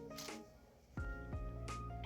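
Background instrumental music with held notes and a light beat, dropping away briefly about halfway through before starting again.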